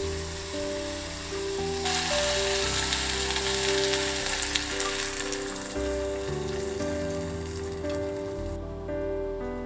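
Food sizzling in a frying pan over background music. The sizzle grows louder about two seconds in and cuts off suddenly near the end.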